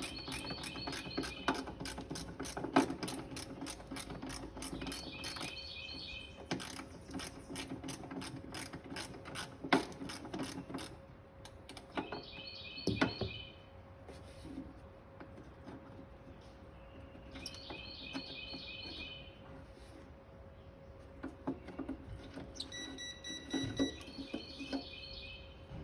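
Ratchet wrench clicking in rapid runs during the first half, then in scattered clicks, while working a spark plug in or out of the engine. A bird gives short chirping phrases several times.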